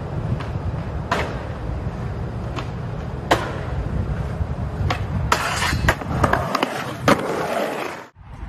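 Skateboard wheels rolling and rumbling over the ground, with several sharp clacks of the board striking the ground.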